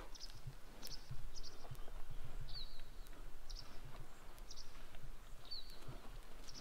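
Small songbirds chirping repeatedly: short high chirps about every half-second, with a quick down-slurred note twice, over light outdoor ambience. Scattered soft low thuds underneath.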